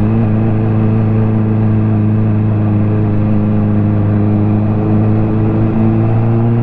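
Ducati motorcycle engine running under way at steady revs, its pitch holding level.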